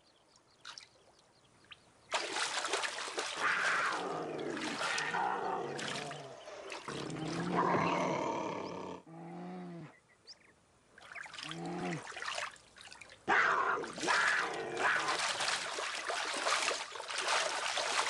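Puma cubs and a young black bear fighting: long bouts of harsh hissing and snarling, with short pitched growling calls that bend up and down near the middle.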